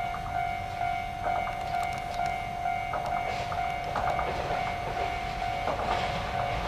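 Level-crossing warning bell ringing in a steady repeated tone as a TDE10 diesel locomotive approaches on its own. Its wheels click over the rail joints, getting louder toward the end.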